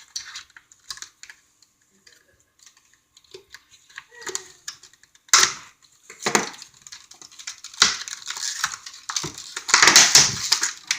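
Stiff chainsaw packaging being wrestled loose by hand: scattered small clicks and taps at first, then harder crunching and scraping from about halfway, loudest near the end.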